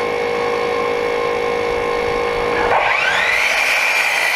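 Electric miter saw running with a steady whine, then cutting into a rough-lumber strapping board nearly three seconds in, the pitch shifting and wavering as the blade goes through the wood.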